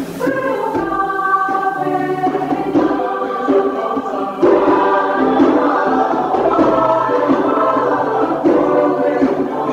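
Mixed church choir singing together in sustained notes, growing louder about halfway through.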